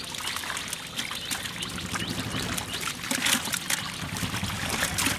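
Pond water splashing and trickling, with many short, sharp splashes scattered throughout.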